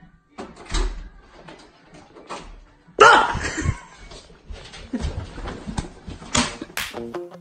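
Knocks and bumps from a door and from handling close to the camera, then a sudden loud bang about three seconds in with a voice shouting over it. Intro music with a steady beat starts near the end.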